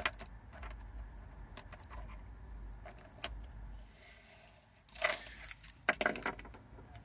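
Metal keys being handled: light clicks and jingles, with two louder clusters of clinks about five and six seconds in, over a low steady hum.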